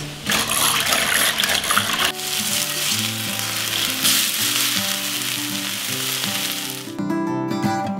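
Food sizzling as it fries in a cast-iron skillet, stirred and tossed by hand. The sizzle cuts off suddenly about seven seconds in, over soft background music.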